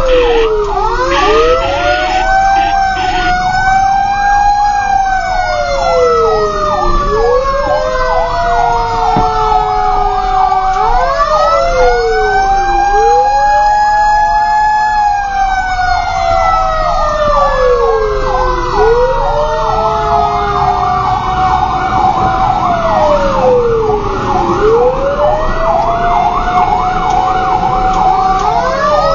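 Fire truck sirens heard from inside a responding fire truck's cab: a wail that rises quickly and falls slowly about every six seconds overlaps a second wail, and a fast yelp runs through much of it.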